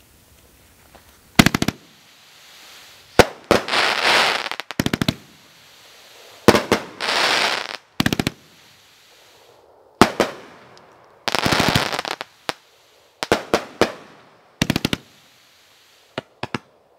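A 500-gram, 25-shot firework cake firing: clusters of sharp reports every second or two. Some clusters are followed by about a second of dense crackling from the bursting stars. The last few small pops come near the end.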